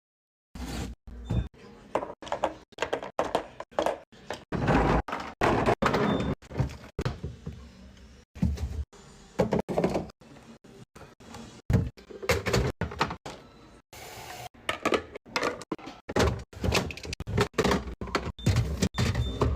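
Food containers, jars and packaging being handled and set down while a refrigerator is restocked: a quick string of thunks, clunks and rustles, broken up by many abrupt cuts.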